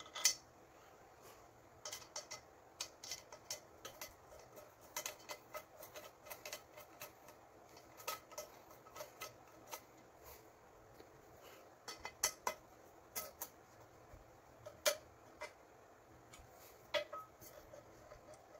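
Hand screwdriver and cookware handle parts clicking and clinking as handles are screwed onto non-stick pans: many short, sharp clicks at irregular intervals, a few louder than the rest.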